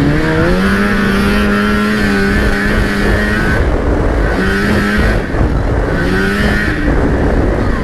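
1997 Lynx G-Type Enduro 500 snowmobile's two-stroke Rotax 494 engine under way on the trail. It rises in pitch as it picks up speed and holds steady for a few seconds. The throttle is then eased off and opened again about twice.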